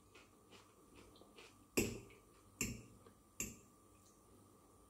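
A metal fork clicking against a plate three times, sharp and evenly spaced, while picking up pieces of fried potato, with a few fainter ticks before.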